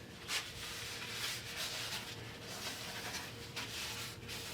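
A cloth wiped over a steel bicycle disc brake rotor: a soft, repeated rubbing, as the rotor is checked for an oily film.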